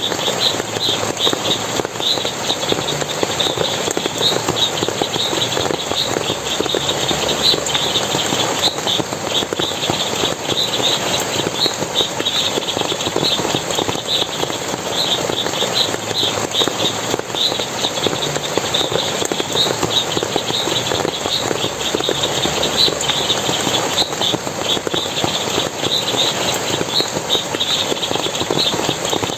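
Forest water splashing and flowing steadily, with a constant, irregular run of short high chirps, several a second, over the top.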